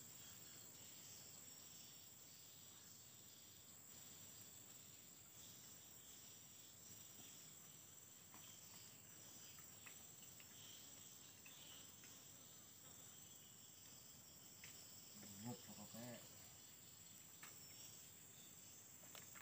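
Near silence with a faint, steady high-pitched chirring of crickets.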